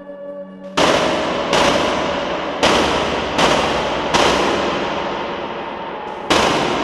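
Dark ambient music: a soft held chord is cut off about three-quarters of a second in by loud, sudden gunshot-like noise bursts. There are six of them at uneven intervals, each dying away slowly.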